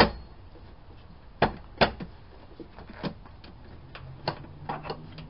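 A 2004 Honda Accord's metal wiper transmission linkage knocking and clunking against the cowl as it is worked into place by hand. A sharp clunk at the start, two more about a second and a half in, then lighter scattered knocks.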